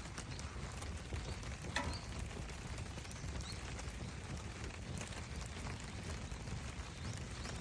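Wood campfire burning, with a few sharp crackles and pops over a steady low rumble.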